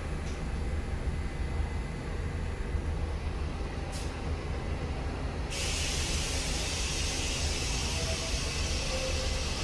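Low steady rumble of New York subway trains in the station. About five and a half seconds in, a loud steady hiss of compressed air starts suddenly: a subway train's air brakes venting. There is a single click about four seconds in.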